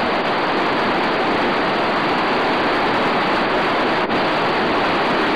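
Steady, loud rush of falling water from a waterfall, unbroken except for a brief dropout about four seconds in.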